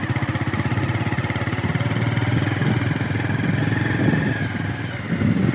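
A vehicle engine running steadily, its firing heard as a fast, even low pulsing.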